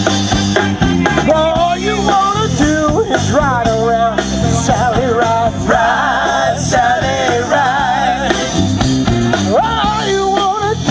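A live band playing a rock-and-soul number: bass and drums keep a steady groove under a wavering lead melody with heavy vibrato.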